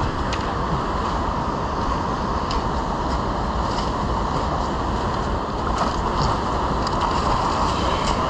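Steady rush of river water flowing over a gravel bar, with a few faint clicks of stones underfoot.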